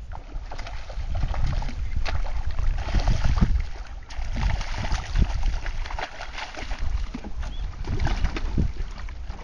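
Water splashing and churning as a hooked redfish thrashes at the surface beside the boat, with wind rumbling on the microphone.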